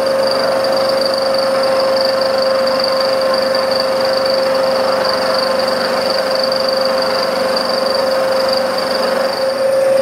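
Bridgeport milling machine running, its end mill side-cutting the edge of a mild-steel plate held in the vise. A steady machine whine with a fainter high ring above it, even throughout.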